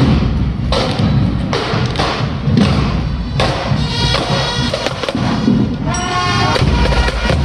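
Marching band passing close by: snare and bass drums beat out an even marching rhythm, about one strong beat every 0.8 seconds. Brass instruments join in with short held notes about four seconds in and again near six seconds.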